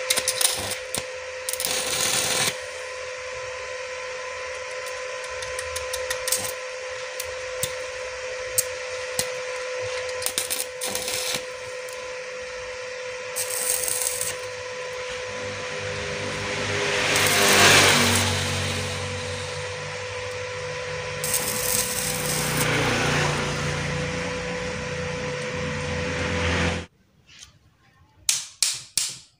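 Stick (arc) welding: the electrode's arc crackles and sizzles steadily over a steady hum while a drill chuck is welded onto an electric motor shaft. The arc cuts off suddenly a couple of seconds before the end, followed by a few light taps.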